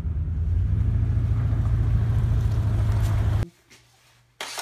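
A car running, heard as a steady low rumble, cuts off suddenly about three and a half seconds in. Near the end comes a short rush of hissing noise lasting under a second.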